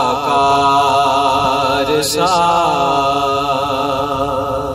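A man singing an Urdu naat unaccompanied, holding long drawn-out notes that waver, with a change of note about two seconds in and the voice trailing off near the end.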